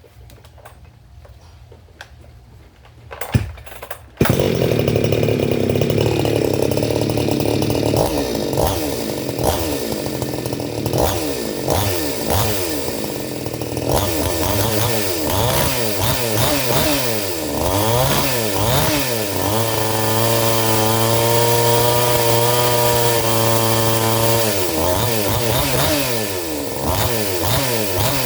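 Tekna 54cc two-stroke chainsaw starting about four seconds in, then being revved up and down repeatedly, held at high revs for about five seconds in the middle, and blipped again near the end.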